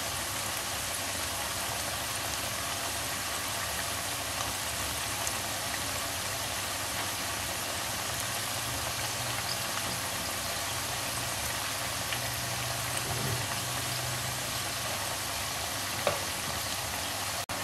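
Cabbage pakoras deep-frying in hot oil: a steady sizzle, with one short click near the end.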